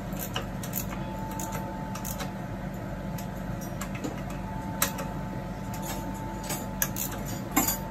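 Socket wrench clicking and tapping on metal as the heat exchanger's securing bolts are tightened: scattered single clicks, the sharpest about five seconds in and near the end, over a steady low hum.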